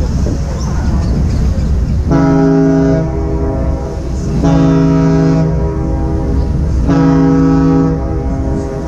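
A deep ship's horn sounding three blasts, each about a second long and a little over two seconds apart, over a steady low rumble of the vessel's engine and the water.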